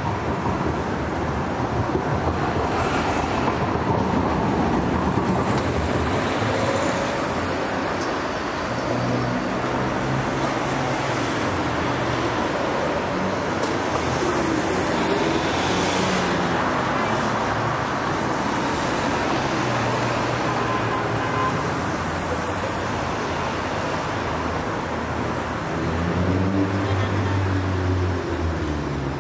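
Busy city street traffic: a steady wash of road noise with the engine hum of passing cars and buses rising and falling, loudest near the end, and faint voices of passers-by.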